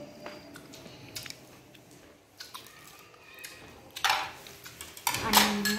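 A person chewing food with small wet mouth clicks, a short rush of breath about four seconds in, then a brief voiced hum near the end.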